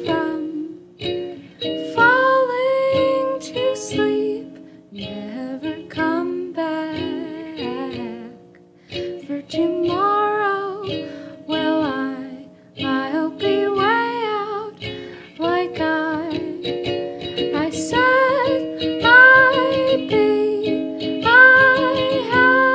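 3D-printed Nuke ukulele strummed in a steady rhythm, with a sliding, bending melody line over the chords.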